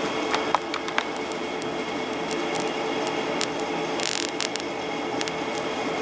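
High-voltage arc drawn between two wire leads by a microwave-oven flyback transformer driven by a 555 timer circuit on 12 V: a steady hiss with a constant tone, scattered sharp crackles, and one longer burst of hiss about four seconds in.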